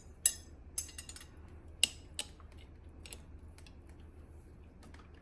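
A handful of sharp, irregularly spaced metallic clicks and clinks of hand tools being handled, mostly in the first two seconds, then only a faint low hum.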